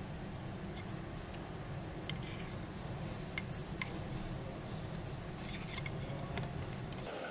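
Occasional faint clicks and taps of hand tools at work over a steady low hum.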